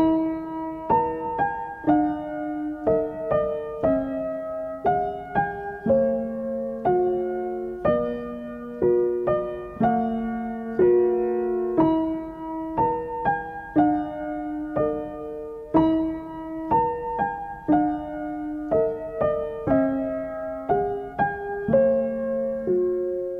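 Background piano music: a gentle melody of struck notes and chords, about one or two a second, each ringing and fading.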